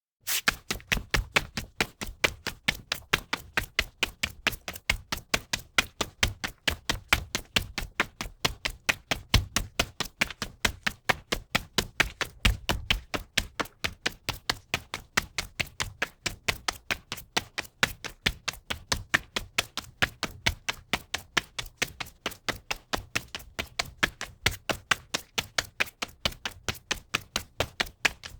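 Running footsteps on a linoleum floor: a fast, even patter of sharp shoe strikes, about four a second.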